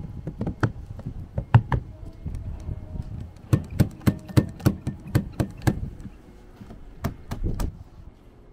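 A string of sharp knocks and clicks: a few scattered strikes at first, then a fairly even run of about eight at roughly three a second, and a few more near the end.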